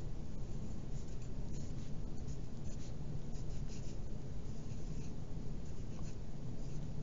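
Dixon Ticonderoga pencil writing on paper: short scratchy strokes that come and go, over steady low background noise.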